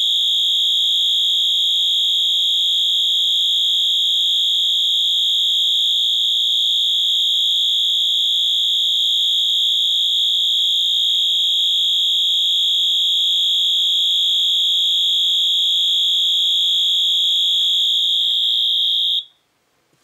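Wheelock MT-24-LSM fire alarm horn sounding a loud, steady, high-pitched continuous tone, partly damped by tape over the horn. It cuts off suddenly about 19 seconds in.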